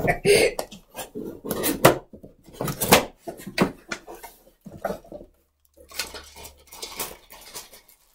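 Cardboard box flaps and plastic-wrapped juicer parts being handled: a run of short rustles, scrapes and knocks as the packaging is opened and a bagged part is lifted out.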